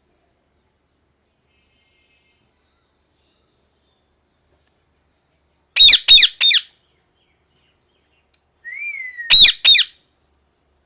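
Pet parrot screeching: silent for the first half, then three loud harsh calls in quick succession about six seconds in, a soft short whistle, and another quick pair of loud screeches near the end.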